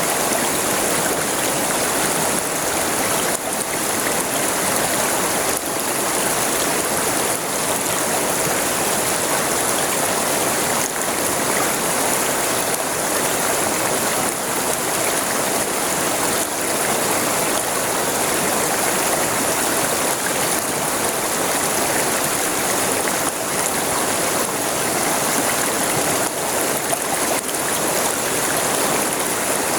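River water flowing steadily over its bed, a continuous rushing and splashing wash with no let-up.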